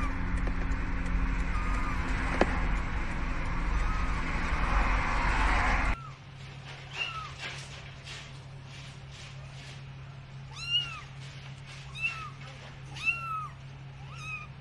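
Steady low car running noise for the first six seconds, with a few faint short cries. Then, after a sudden cut, a tiny kitten mews repeatedly: a string of thin, high-pitched mews, each one rising and then falling in pitch.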